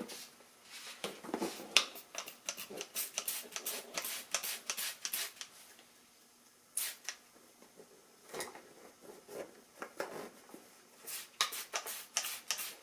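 Hand trigger spray bottle squirting liquid over an inflated lawnmower inner tube to find a leak: a quick run of short spritzes, pausing about halfway through, then coming fast again near the end.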